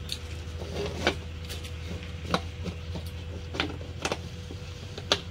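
Irregular sharp clicks and knocks, about seven of them, from a plastic jar being handled against a wall, over a steady low hum.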